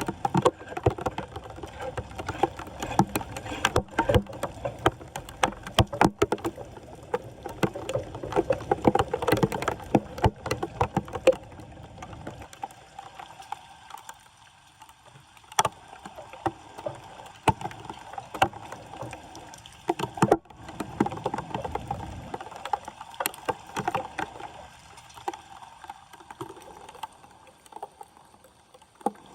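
Floodwater splashing and sloshing with irregular knocks and scrapes as a blocked street drain is cleared of debris; busy for about the first twelve seconds, then sparser and quieter.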